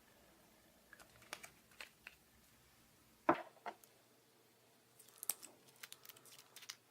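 Slime and makeup being worked by hand, giving short sharp clicks and crackles in scattered groups, with one louder snap about three seconds in.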